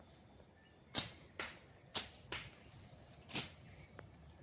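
Sharp hammer blows on hard material, five in about four seconds, each hard blow at times followed quickly by a lighter one.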